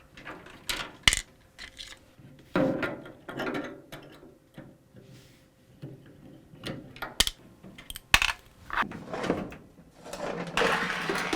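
Hands working on a dryer's sheet-metal cabinet: scattered sharp metallic clicks and knocks with short stretches of scraping and rattling, the longest near the end.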